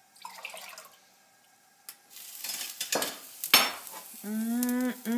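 A metal ladle and mesh strainer clink and clatter against a ceramic mug as hot tea is strained into it, with one sharp clink a little past halfway. Near the end comes a long hummed "mmm" that holds steady and then rises in pitch.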